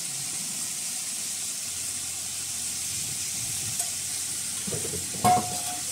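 Goat meat korma in a two-handled pan sizzling and hissing steadily as it cooks, with a brief knock about five seconds in.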